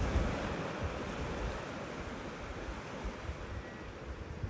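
Sea waves breaking and washing up a sandy beach, a steady rush of surf that swells just after the start and then eases a little, with low thumps of wind buffeting the microphone.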